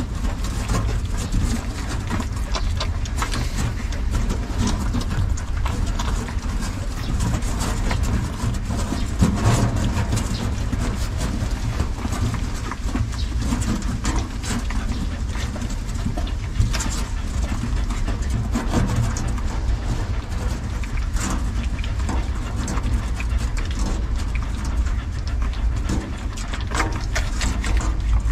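A litter of puppies nursing from their mother: scattered suckling, smacking and scuffling noises over a steady low rumble.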